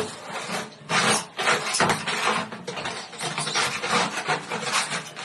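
Pet birds' beaks rasping and gnawing, an irregular run of scratchy scraping strokes.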